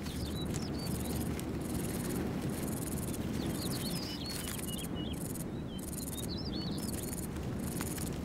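Outdoor ambience of insects stridulating in short, repeated bursts of high-pitched buzzing, with small birds chirping and a low steady rumble underneath.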